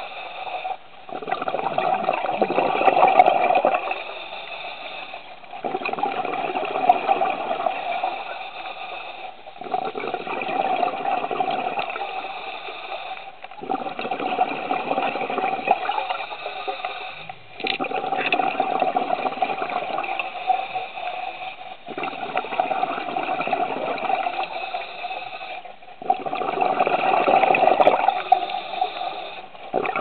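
Scuba diver breathing through a regulator underwater: a rush of exhaled bubbles every four seconds or so, with short quieter stretches between breaths.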